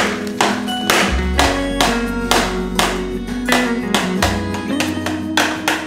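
Background music with a steady beat, about two beats a second, over sustained low notes.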